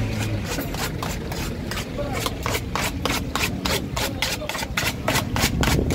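Knife blade chopping fried vegetables for kafteji in a metal dish, in quick, even strokes about four times a second that start about a second in. A vehicle engine fades out at the start.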